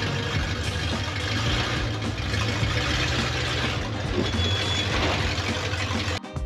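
Truck engine running steadily with a low rumble, a short high beep a little past four seconds in; the sound cuts off abruptly near the end.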